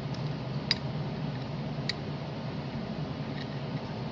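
Two sharp snips of wire cutters trimming soldered component leads flush on a circuit board, about a second apart, over a steady low hum.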